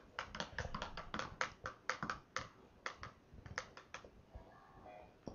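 A spoon knocking and clicking against the side of a plastic jug as pineapple juice is stirred: a run of irregular light clicks, a few a second.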